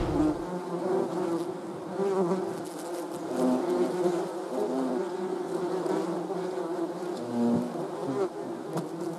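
A swarm of bees buzzing: several overlapping hums that waver and drift in pitch, rising and falling as individual bees pass.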